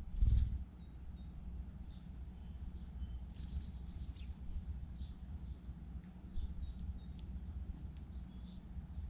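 Blackbirds calling: scattered short, high chirps and two downward-sliding whistled notes, over a steady low rumble of outdoor noise. A dull thump comes just after the start.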